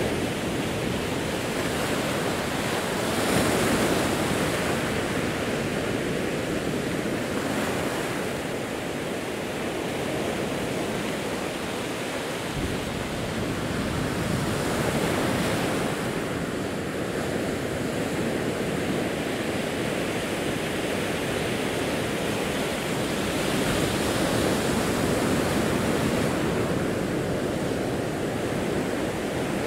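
Pacific Ocean waves breaking and washing over a rocky shore, a steady roar of surf that swells louder three times, roughly every ten seconds.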